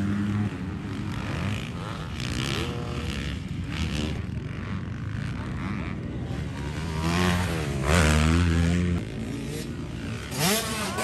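Motocross dirt bikes racing on a track, their engines revving up and down in repeated rising and falling runs as the riders shift. The loudest moment is about eight seconds in, as a bike's pitch climbs and then drops.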